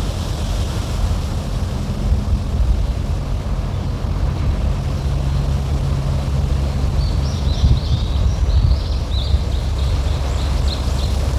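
Wind buffeting the microphone with a steady low rumble, and a steady low hum that stops about eight seconds in. A bird chirps in quick short notes from about seven seconds in.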